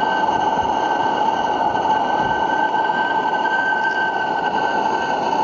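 Steady hissing roar with a thin whistling tone from a 3/4-inch scale gas-fired live steam Allchin traction engine standing in steam, its burner firing.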